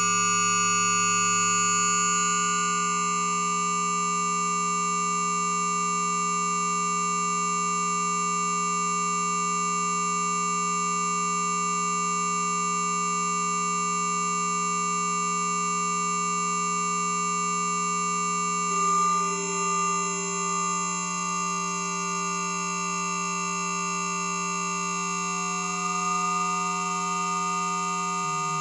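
Electronic drone of many held, pure sine-like tones stacked into a dense chord, from a frozen-spectrum synthesis patch. About two-thirds of the way through, the chord shifts with a brief wavering swell, and near the end the lowest tone starts to pulse.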